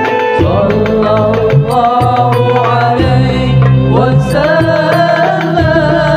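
A man singing a long, melismatic Islamic devotional chant (sholawat) into a microphone, amplified through a PA, with drum accompaniment.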